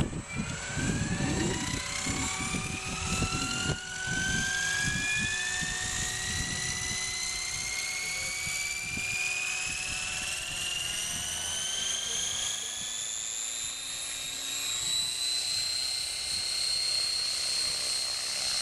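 Radio-controlled model helicopter spooling up: a whine that rises steadily in pitch for about fifteen seconds as the rotor comes up to speed, then holds level as the helicopter lifts off. Low, gusty rumbling in the first few seconds.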